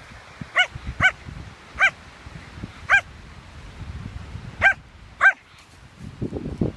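A dog giving six short, high-pitched barks at uneven intervals, over low rumbling wind noise on the microphone.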